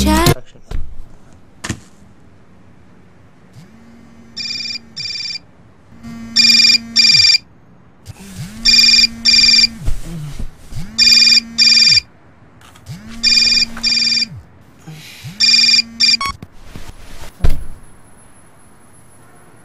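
Mobile phone ringing: six double-pulse rings about two and a half seconds apart, each over a low buzz, after music cuts off at the start. The ringing stops about sixteen seconds in, followed by a sharp thump.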